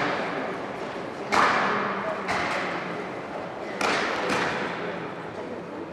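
Sharp cracks of fast karate techniques in a kata, the gi snapping with each strike, about five in all and each trailing off in the echo of a large hall.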